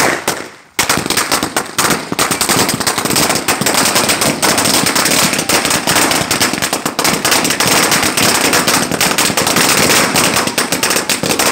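A 1000-cracker firecracker string (a "1000 wala" ladi) going off in a loud, rapid chain of bangs. It starts with a crack, pauses briefly, then runs on as an unbroken rattle from about a second in.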